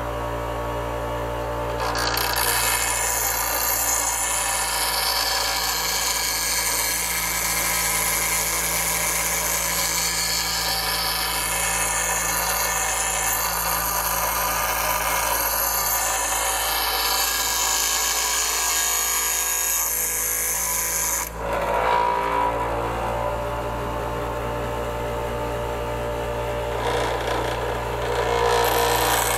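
Bench grinder motor running steadily while the steel blade of a sanggot, a Filipino hooked knife, is ground against the wheel, throwing sparks. The grinding noise starts about two seconds in and stops sharply at about twenty-one seconds, leaving the motor humming alone. Grinding picks up again near the end.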